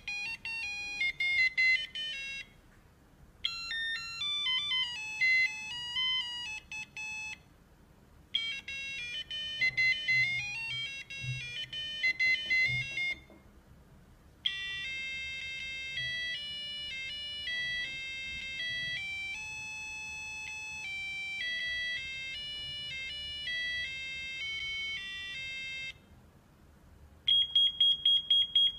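LED alarm desk clock's buzzer playing electronic beeping alarm melodies, four short tunes with brief pauses between them. Near the end it switches to a fast, steady single-tone alarm beep.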